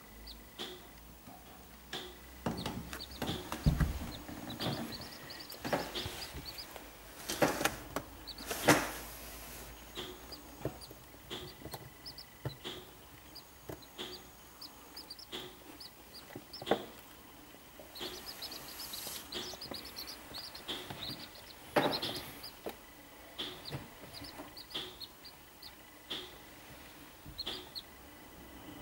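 Seven-day-old corncrake chicks cheeping: short high peeps repeated many times, in quick runs. A few sharp knocks and rustles of handling sound among them, the loudest about four, nine and twenty-two seconds in.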